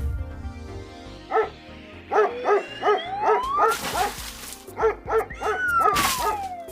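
A dog barking in a string of short, quick barks, with a sliding tone that rises in the middle and falls near the end.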